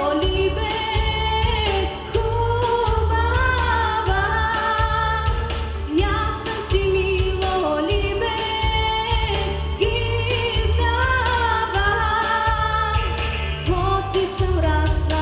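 A woman singing a Bulgarian folk song over instrumental accompaniment with a strong, pulsing low beat.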